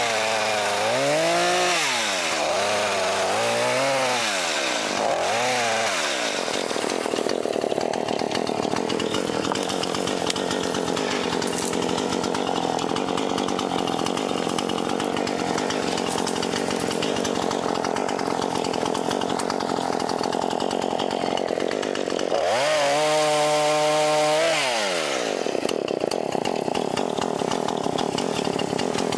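Chainsaw cutting through brush and tree limbs. Its engine revs up and down three times, runs steadily under load for about fifteen seconds, then revs up and drops once more near the end.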